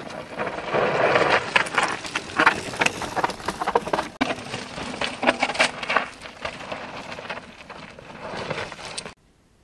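Mountain bike tyres skidding and crunching over loose gravel and rock on a steep enduro descent, with many sharp clicks and knocks of stones and the bike rattling over them. It breaks briefly about four seconds in, as a second rider comes through, and cuts off abruptly near the end.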